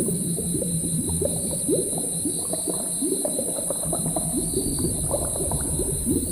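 A layered ambience soundscape: a steady hiss with a faint high tone, and underneath many short, irregular rising blips over a low rumble, like liquid bubbling.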